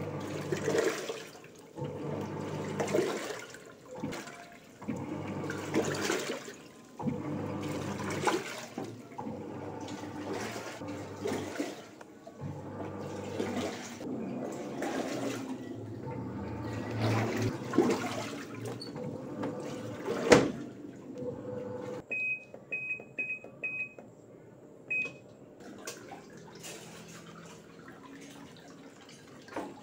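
Samsung WA80V4 top-loading washing machine agitating its wash water, the motor hum and sloshing surging every second or two, running normally again after its control module was replaced. About twenty seconds in it stops with a click, and a little later the control panel beeps five times, four quick beeps and then one more.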